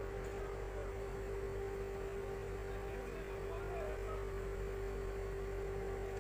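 Steady machine hum: one constant mid-pitched tone over a low rumble, unchanging throughout.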